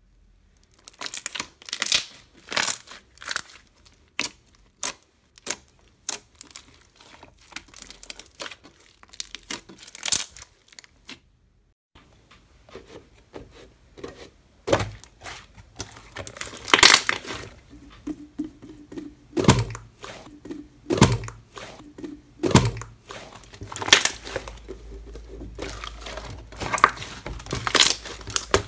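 Slime being stretched, pressed and squeezed by hand: a run of sticky clicks and crackles, then after a short break about halfway, louder sharp pops every second or two.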